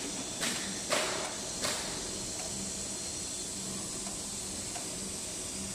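Automatic tin-can lid-closing machine running: a steady hiss with three short, sharp noisy bursts in the first two seconds, over a faint low hum.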